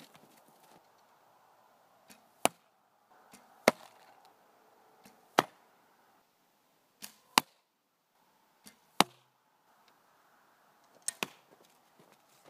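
Arrows shot in quick succession from a recurve bow at long range: about six sharp thwacks of arrows striking a cardboard box target close by, roughly every one and a half to two seconds. Several are preceded by a faint distant snap of the bowstring about a third of a second before the hit.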